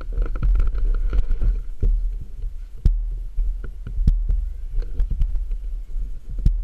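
2009 Yamaha WR250X's 250 cc single-cylinder engine idling with a steady low throb, with scattered knocks and clicks over it.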